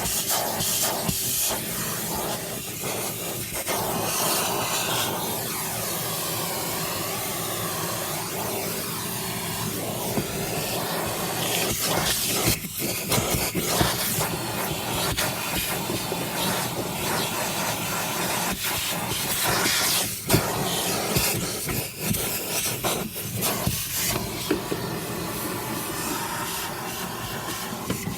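Vacuum cleaner running steadily while cleaning a car interior, with scattered short knocks and rattles as debris is sucked into the nozzle.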